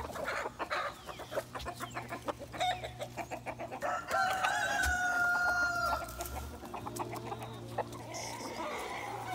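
Farm poultry clucking and calling, with a rooster crowing once for about two seconds in the middle.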